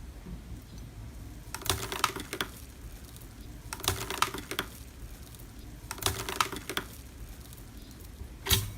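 Slime being squeezed and worked by hand, giving three short bursts of crackly clicking about two seconds apart and one sharper crack near the end.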